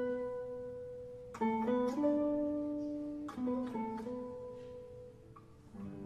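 Background music: slow plucked string notes, with clusters of notes that ring and fade away.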